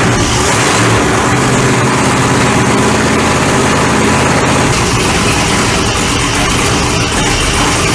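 A vehicle engine idling steadily, its low note shifting slightly about two-thirds of the way through.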